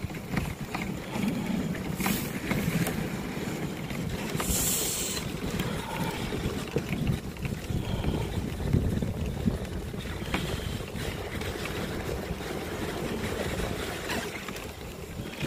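Dog sled running over snow behind a team of sled dogs: a steady swish of the runners with a few brief knocks, and wind on the microphone.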